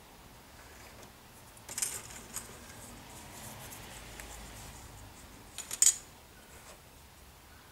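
Light clatter of plastic model-kit parts being handled and picked from a loose pile, in two short bursts about two seconds in and just before six seconds, the second louder.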